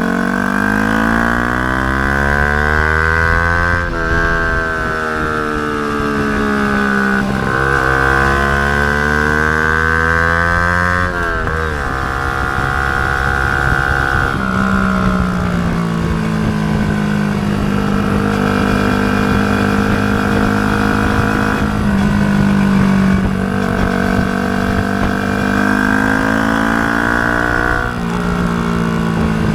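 Yamaha YZF-R125's single-cylinder four-stroke engine through a Mivv GP Pro exhaust with the dB killer fitted. Its pitch falls and rises over the first eleven seconds, drops suddenly, then holds a fairly steady note.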